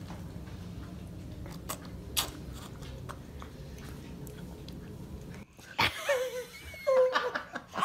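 A baby's faint mouth clicks and smacks while chewing a bite of food over a low room hum, then the baby's short vocal squeals with sliding pitch in the last two seconds.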